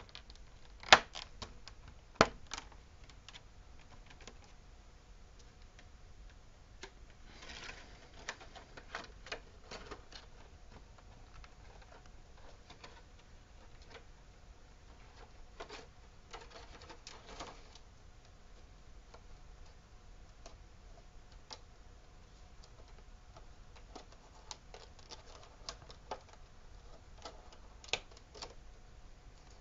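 Scattered clicks and brief rustling from figure packaging being handled: a plastic insert and a cardboard window box. Two sharp plastic clicks come about a second and two seconds in, with lighter ticks and rustles after.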